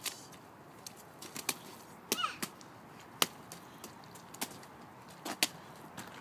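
Child's rubber boots stepping and splashing through a shallow mud puddle and wet slush: irregular short splats and squelches, about one a second. A brief high child's voice about two seconds in.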